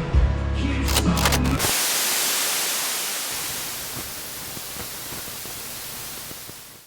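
Music for about the first second and a half, then a static-like hiss across all pitches that gradually fades and cuts off abruptly at the end.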